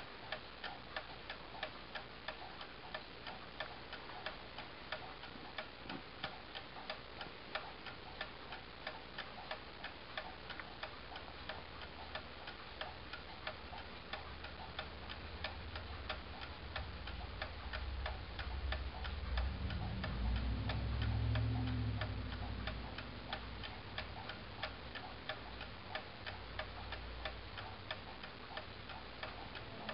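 Brass clock movement with a crown-wheel (verge) escapement ticking steadily, with a regular even beat. A low rumble swells and fades in the second half.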